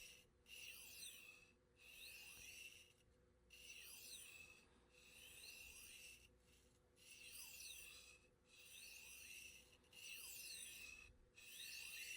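A knife blade drawn in long strokes along a 12-inch extra-fine (1200-grit) diamond sharpening rod: a faint rasping hiss repeated about eight times, roughly one stroke every second and a half.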